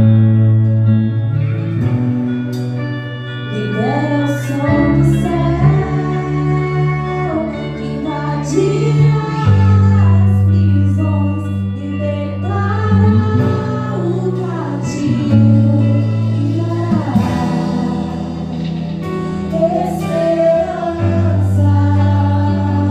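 Church worship band playing a slow song: held bass and keyboard chords that change every few seconds, with guitar and a voice singing the melody over them.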